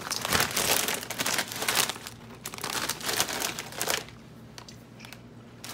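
Crinkling of a plastic snack bag with a foil lining being handled, in repeated bursts for about four seconds before it stops.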